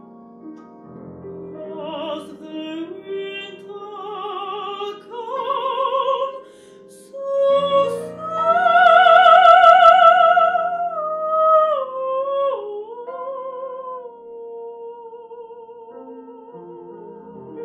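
Mezzo-soprano singing with wide vibrato over grand piano accompaniment: the voice swells to a loud high climax near the middle, steps down in pitch, and ends on a long, softer held note.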